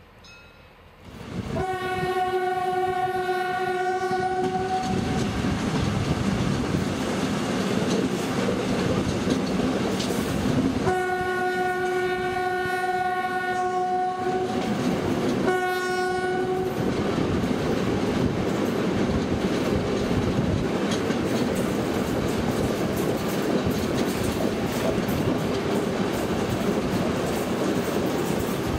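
Train horn sounding three times, two long blasts and then a short one, over the steady rumble and clickety-clack of a moving train's wheels, heard from a coach near the locomotive.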